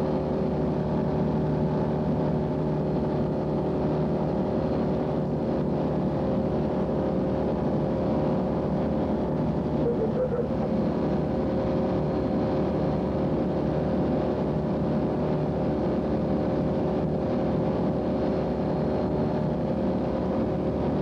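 A fireboat's engine running steadily while the boat is underway: a constant drone with a few steady tones, under the rush of water and wind past the hull.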